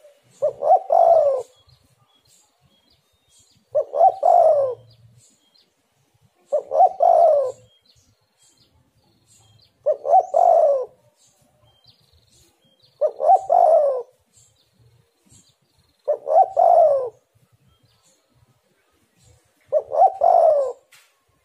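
Spotted dove cooing its song: a short phrase of several throaty notes with a falling final note. It repeats about every three seconds, seven times.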